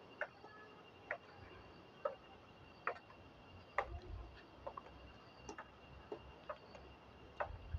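Treadle sewing machine stitching slowly through cloth: a soft click a little more often than once a second, one for each stitch.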